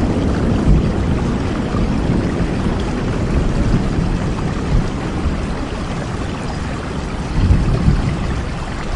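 Steady rain: an even hiss with a heavy low rumble underneath, easing slightly toward the end.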